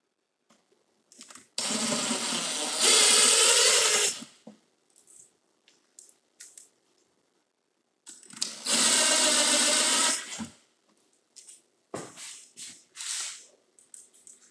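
Ryobi cordless driver driving screws into a metal blind mounting bracket: two runs of a couple of seconds each, the first getting louder about halfway through. A few short knocks follow near the end.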